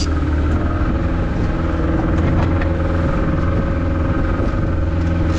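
Boat engine running steadily under way, a constant low drone.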